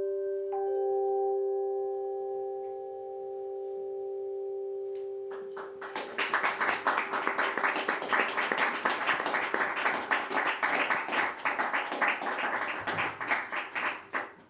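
Several held ringing tones of different pitches sound together and then fade as the song ends. About five seconds in, audience applause starts and carries on.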